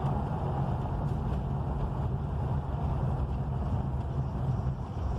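Steady low rumble of a moving vehicle, engine and road noise heard from inside, running at an even level.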